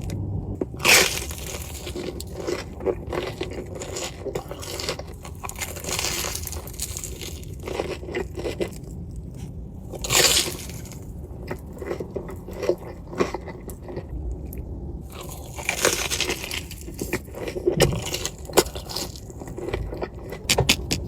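Close-miked eating: biting into crunchy food and chewing, with many small crackles and a few loud crunches, about a second in, about ten seconds in and about sixteen seconds in.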